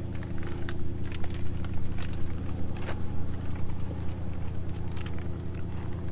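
An engine running steadily at a low idle, with scattered light clicks and ticks over it.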